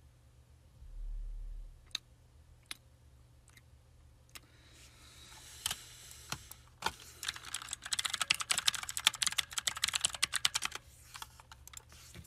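A few scattered single clicks, then a fast, dense run of clicking and tapping lasting about three seconds, after a brief low hum near the start.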